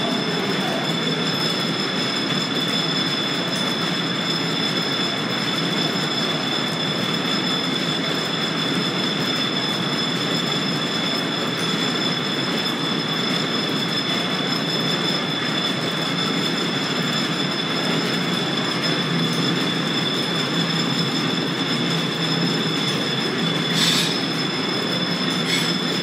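Line-shaft belt drive running: the overhead shaft, pulleys and flat belts turning the old workshop machines, a steady mechanical rumble with two steady high-pitched squealing tones. Two sharp clicks come near the end.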